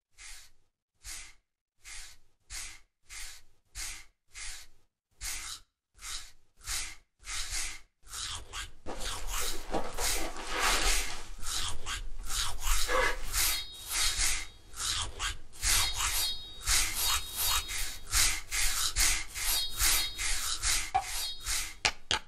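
Bare skin being scrubbed by hand with a scrubber, a dry rasping sound. The strokes come slow and evenly spaced, about one and a half a second, for the first eight seconds, then turn faster and almost continuous, and stop abruptly at the end.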